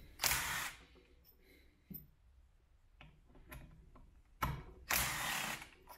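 Makita 18V cordless driver running in two short bursts, backing Torx screws out of a ZF 6HP26 mechatronic valve body, with a few light clicks in between.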